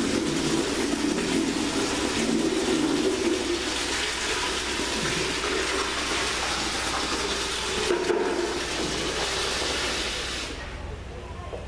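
Water rushing steadily, as from a tap or a flush, for about ten seconds, then stopping.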